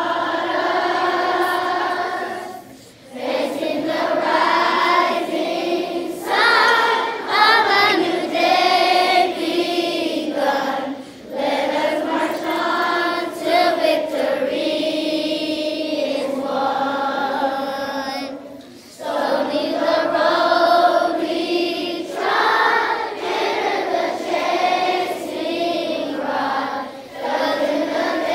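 A large group of schoolchildren and adults singing together in long held phrases, with short breaks for breath about three seconds in and again past the middle.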